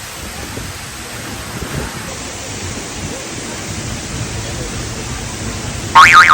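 Steady rushing roar of a waterfall's falling water, close by. About six seconds in, a sudden loud, warbling high-pitched sound cuts in over it.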